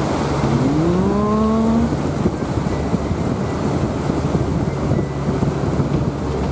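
Small boat's engine running under way, with wind buffeting the microphone and a steady rush of noise. About half a second in, a pitched tone rises and holds until about two seconds in.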